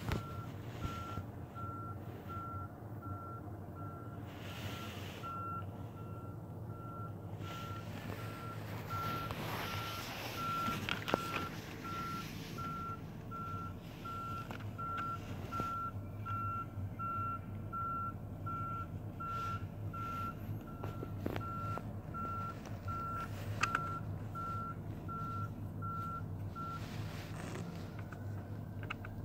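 Fire truck's reversing alarm beeping about once a second on a single steady pitch, stopping a couple of seconds before the end, with the truck's engine running underneath.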